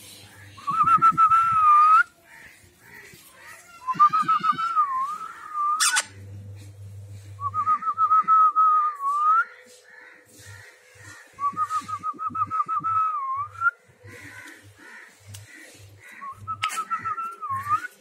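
A whistled tune, a fast trill of short stepped notes that ends in a dip and rise in pitch, repeated five times every three to four seconds.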